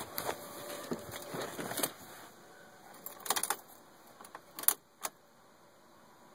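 Car keys jangling, with a series of separate sharp clicks and rattles, the loudest about two-thirds of the way through. No engine cranks or runs.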